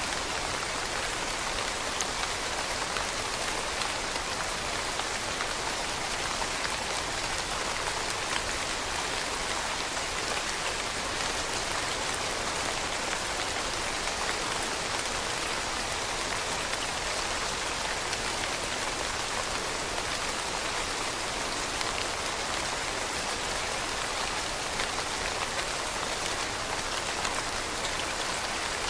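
Steady rain falling on leaves, an even hiss of many drops with faint individual patters.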